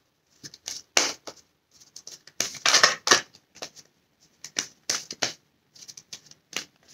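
Oracle cards being shuffled and drawn from the deck: a run of short, irregular papery flicks and slides, loudest about three seconds in.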